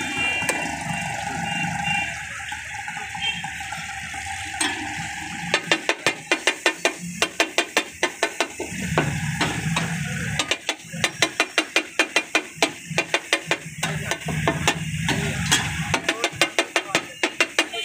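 Masala sizzling on a hot flat iron tawa, then a steel spatula clattering rapidly against the griddle as it chops and mashes tomatoes and spices. The strikes begin about five seconds in and come in fast runs of about five a second, with short pauses between runs.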